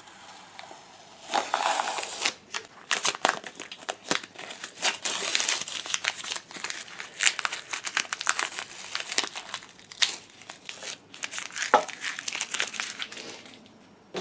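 Blue painter's tape peeling off a 3D printer's bed and being crumpled by hand as a printed part is pulled free: a dense, irregular run of crinkling, crackling and sharp clicks.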